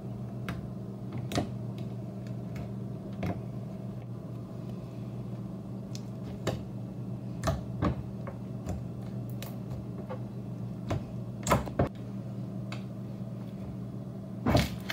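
Yellow fishbowl slime with pink foam beads kneaded, stretched and patted by hand: scattered soft clicks and pops, a few louder near the end, over a steady low hum.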